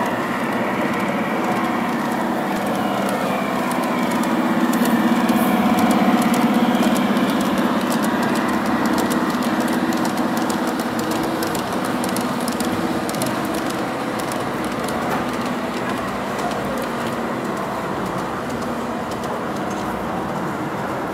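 A 45 mm gauge model train running along its track: a steady motor and wheel hum that swells as the coaches pass close, loudest about six seconds in, with a quick run of fine clicks from the wheels on the rails.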